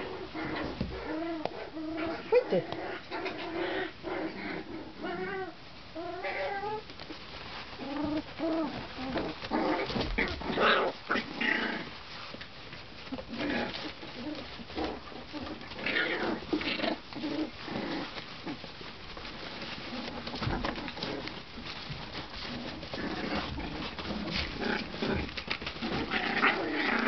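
Month-old Tibetan terrier puppies making short, wavering whines and squeaks, with scuffling and rustling of the bedding as they play-fight.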